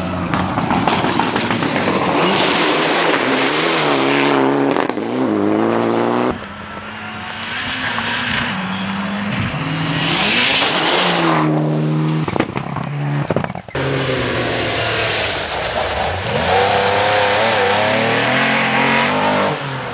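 Rally cars running flat out on a gravel stage, engines revving hard with pitch climbing and dropping through quick gear changes as each car passes. The sound cuts suddenly from one car to the next about a third and two-thirds of the way through.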